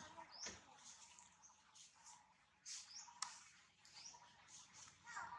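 Faint bird chirps: short upward-sweeping calls repeating about once a second, with one sharp tick about three seconds in.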